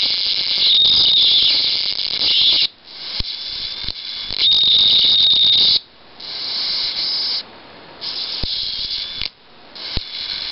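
Tiny high-voltage arc from a small portable CRT TV's flyback transformer, a high-pitched hissing scream with a whistling tone at times. It cuts out and starts again several times, with a few sharp clicks.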